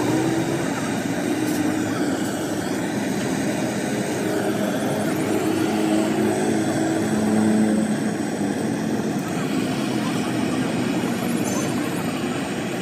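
A blowtorch flame burning steadily as it heats the seam between a radiator's top tank and core for soldering.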